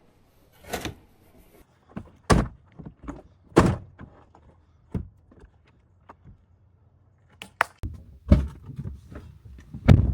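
A series of separate thuds and knocks, a few seconds apart, with heavier ones near the end: vehicle doors opening and shutting as gear is loaded for a drive.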